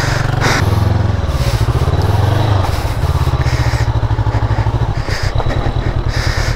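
Motorcycle engine running with an even, pulsing low beat, revved up about a second in and easing back by about two and a half seconds, as the bike works under load to get through mud.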